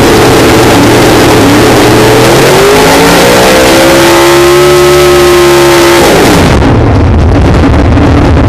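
Drag race car's V8 revving hard through a burnout, heard loud and distorted from inside the cockpit. Its pitch climbs over a couple of seconds and is held at high revs, then drops sharply about six seconds in to a lower rumble.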